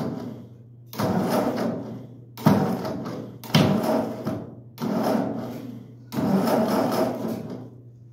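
Ford 8N tractor's starter cranking the engine in five short bursts of about a second each, the engine not catching. The owner puts the failure down to a battery weakened by cold and age.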